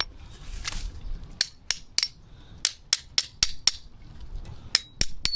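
About eleven sharp metal-on-metal hammer blows in quick runs, knocking a steering-head bearing race out of a motorcycle frame; the last blow rings on.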